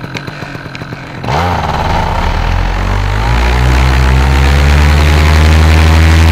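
Paramotor engine idling, then throttled up sharply about a second in, its pitch rising and settling into a steady high-power drone for the take-off run.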